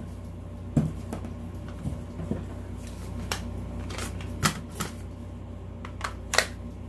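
Irregular sharp plastic clicks and knocks of a CAA 30-round polymer rifle magazine being handled and worked into a CZ 805 Bren's magazine well, with light rattling against the cardboard packaging. A low steady hum runs underneath.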